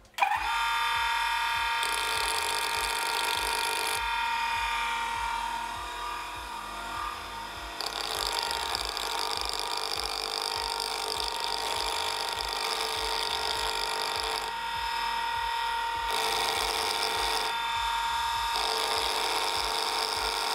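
Electric motor of a Hafner double-wheel sharpening grinder starts up and runs with a steady whine. A 40 mm bench chisel held in the sliding jig is ground on the wheel, and a hissing grinding noise comes and goes in stretches of a few seconds as the steel is worked against the stone.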